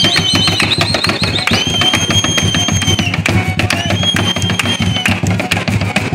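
Live son music with strummed strings and a high held note that comes three times, over fast zapateado footwork: shoe heels tapping and stamping on a wooden tarima.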